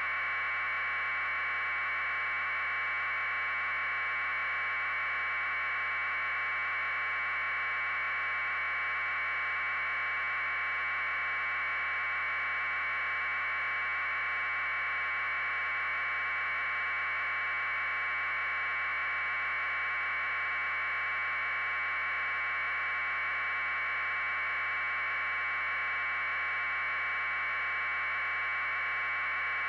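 A steady, even electronic hiss with a buzzing edge, unchanging in level and pitch. It is noise on the audio channel of a raw aerial news feed rather than a sound from the scene.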